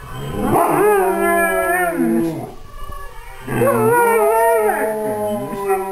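Briards howling: two long drawn-out howls, the second beginning about three and a half seconds in, each with two voices at different pitches sounding together.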